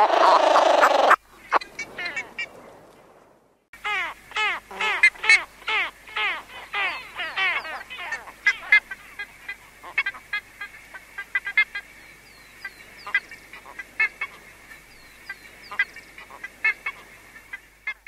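A flock of ibises calling. A loud, dense burst of harsh calls in the first second fades out over the next two seconds. After a short break, a new recording starts with short calls in quick succession, which thin out to scattered calls over a faint steady background tone.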